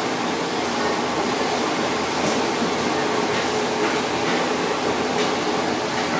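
Steady whir of a kitchen ventilation fan with a faint low hum, and a few faint light clicks scattered through it.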